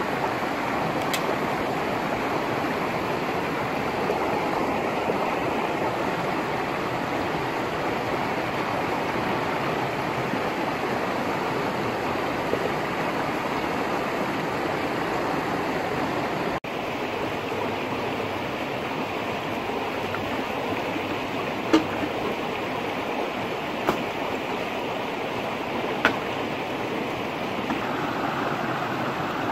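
Shallow rocky river rushing steadily over stones. Three short sharp clicks stand out in the last third.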